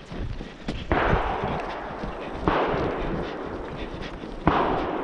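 Three gunshots from another hunter's gun, fired at a buck, heard at a distance. They come about a second and a half to two seconds apart, and each trails off in a long rolling echo.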